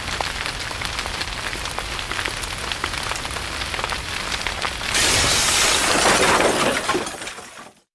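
Fire crackling and popping, then a sudden louder rush of noise about five seconds in that dies away near the end.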